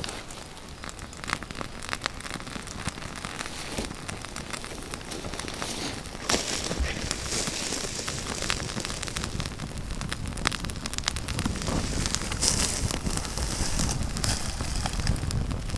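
Pile of dry twigs catching fire, crackling and snapping with many small sharp pops. The crackle grows louder and denser about six seconds in as the kindling takes flame.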